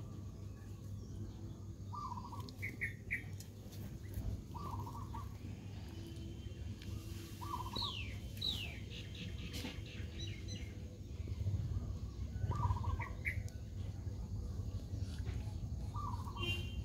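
Birds calling: a short chirp repeated every few seconds, with a quick run of falling chirps about eight seconds in, over a steady low rumble.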